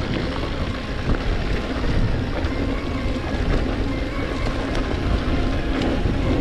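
Wind buffeting an action camera's microphone over the rumble of mountain bike tyres rolling fast down a dirt trail, with light rattles from the bike.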